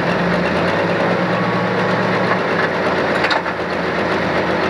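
Pro Stock pulling tractor's diesel engine idling steadily while hooked to the sled at the start line, with a single short knock about three seconds in.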